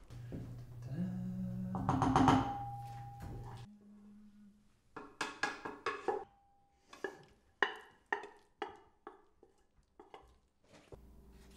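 Dishes and a serving spoon clinking as food is dished out of a pot onto plates, a quick series of sharp knocks and scrapes from about five seconds in. Before that, a low steady hum.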